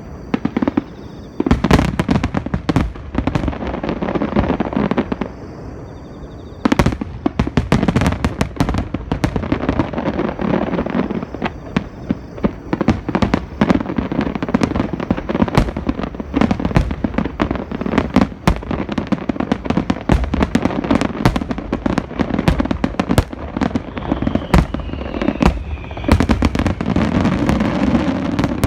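Fireworks display: aerial shells bursting in rapid succession, a dense run of sharp bangs and crackles over a low rumbling boom, with a brief lull about six seconds in.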